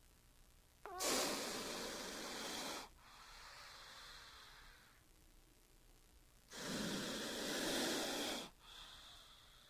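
A snake hissing: two long hisses of about two seconds each, about five seconds apart, with a fainter breathy hiss between them.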